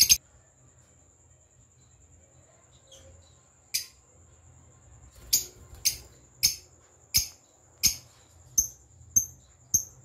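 Caged lovebirds giving short, shrill chirps: a single one about four seconds in, then a steady run of them about every half second through the second half. A sharp click at the very start, and a faint steady high whine underneath.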